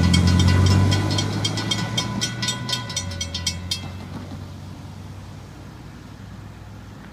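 Freight train cars rolling past, with rapid wheel clicks over the rails, a low rumble and a thin steady squeal. The clicking stops about four seconds in and the train sound fades away.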